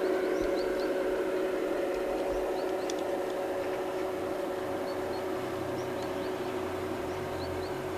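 G-scale garden-railway model diesel locomotive running with its freight train: a steady whine with track rumble that slowly fades.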